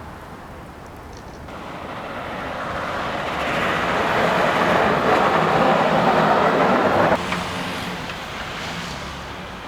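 A vehicle driving past on a snowy road: its road noise swells over a few seconds, drops off sharply about seven seconds in, then fades.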